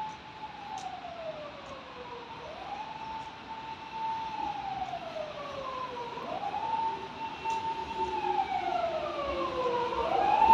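Emergency vehicle siren wailing, with each cycle rising quickly to a held high note and then sliding slowly down, repeating about every three and a half seconds. It grows steadily louder as it comes closer.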